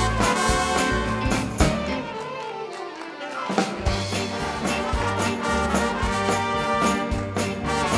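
Brass band with trumpets and trombones playing a swinging tune with a steady beat. A little past two seconds in, the bass drops out under a falling slide, and the full band comes back in just before four seconds.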